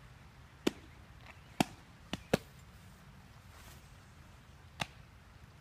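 A softball smacking into leather fielding gloves during pitching practice: five sharp pops, the loudest about three quarters of a second, a second and a half and two and a half seconds in, with a last one near the end.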